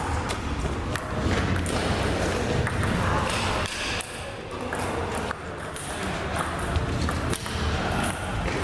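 Table tennis ball clicking off the table and paddles in a series of sharp, irregularly spaced taps, heard over a steady low rumble of the hall.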